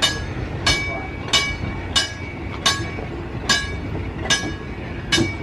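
Los Angeles Railway Type B streetcar No. 525 rolling slowly along the track: its wheels give a sharp metallic click with a brief ring about every three-quarters of a second, eight times, the clicks spacing out a little as it goes, over a low running rumble.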